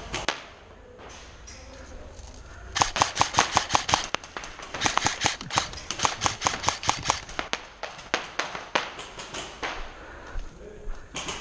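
Airsoft guns firing: a quick string of sharp shots at about seven a second, then more shots in uneven runs.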